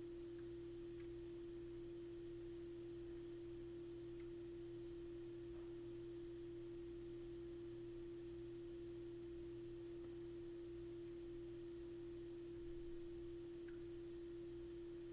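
A steady pure tone held unchanged at one pitch throughout, with a fainter low hum beneath it.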